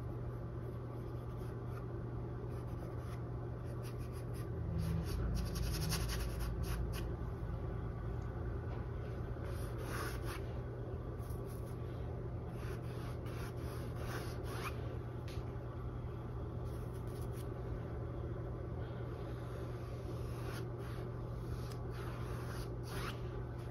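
Paintbrush dragged across a stretched canvas, laying on acrylic paint in soft, scratchy rubbing strokes at irregular intervals, over a steady low hum.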